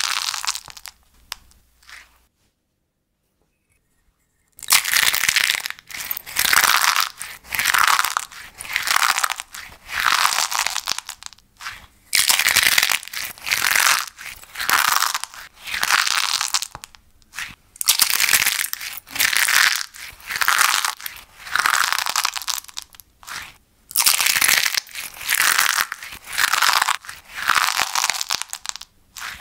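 Brittle, crispy pleated cups squeezed and crushed in both fists, a crackly crunch with each squeeze, roughly one a second. A silent gap of about two seconds comes shortly after the start, then the crunching squeezes go on steadily.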